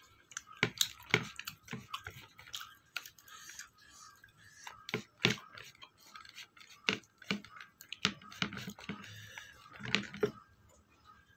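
Food being mixed by hand on a plate: irregular sharp clicks and taps as fingers work rice and curry against the plate.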